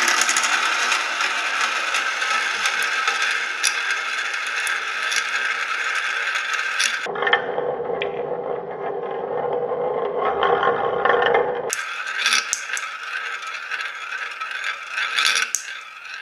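Several plastic marble-run balls rolling round and round inside a hand-held plastic funnel of a Kumon Kumi Kumi Slope, a steady rolling rattle. From about seven to twelve seconds in it turns lower and duller. Afterwards the brighter rattle returns, with clicks as balls drop through the centre hole into a palm.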